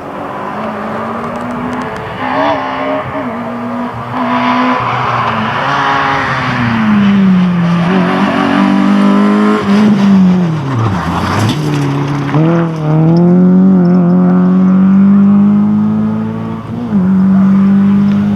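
A rally car's engine running hard under load, its pitch stepping and sweeping with gear changes. The revs drop sharply about eleven seconds in, as if lifting or braking for a corner, then climb again and hold high.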